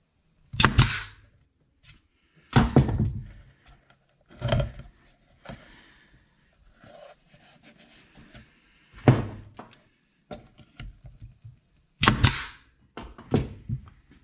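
Pneumatic brad nailer driving nails into cedar boards: about six sharp shots at uneven intervals, each followed by a brief hiss. Faint handling of the wood comes between the shots.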